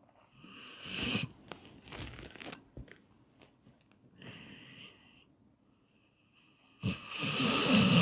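A person snoring: rasping, rattling snores about a second in and again near the end, the last the loudest, with a fainter breath between them.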